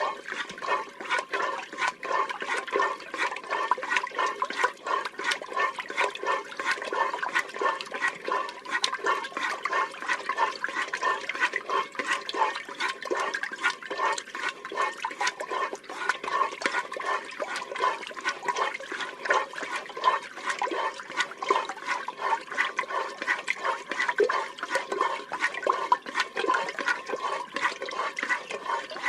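A cow being milked: quick squirts of milk streaming out one after another in an even rhythm, a few a second, with no pause.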